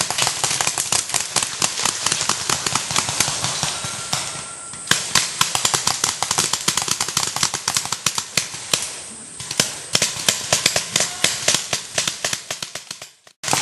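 Several game guns firing rapid, overlapping shots in a mock-combat skirmish, with two short lulls about five and nine seconds in, then falling quiet just before the end.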